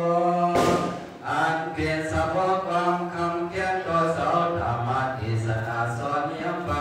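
A Buddhist monk chanting into a microphone in a sustained, melodic male voice, holding long intoned phrases, with a brief hiss of breath about half a second in.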